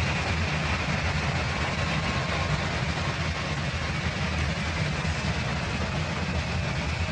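Large stadium crowd making a steady, dense din of many voices with no clear tune, played back pitched down.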